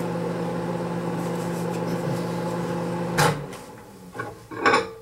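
Microwave oven running with a steady hum while it heats soft-plastic plastisol. About three seconds in the hum cuts off with a sharp click, and a few light knocks and clinks follow.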